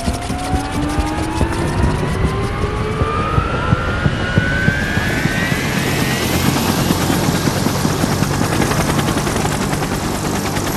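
A motor-like whine that rises steadily in pitch over about five seconds, over a loud, dense rumbling noise that carries on steadily afterwards.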